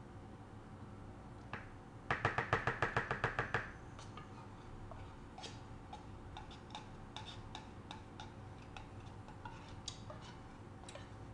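Metal spoon scraping out an opened tin can of sweetened condensed milk. About two seconds in there is a quick rattle of metallic taps, roughly nine a second, lasting about a second and a half. Scattered light clicks and scrapes follow as the spoon works inside the can.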